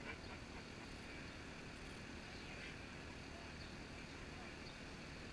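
Faint, steady outdoor background noise, mostly a low rumble, with no distinct event.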